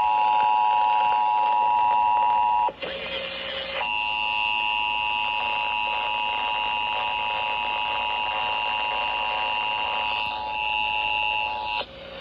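Emergency Alert System attention signal: two steady tones sounding together, a harsh dual-tone beep marking the start of the monthly test alert. It breaks off for about a second near three seconds in, leaving hiss, then resumes and stops shortly before the end.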